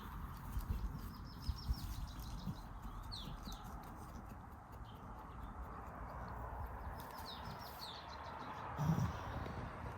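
Small birds chirping: short, falling chirps repeated in little groups over a faint outdoor background. A few soft knocks come in the first two seconds, and a brief low grunt near the end.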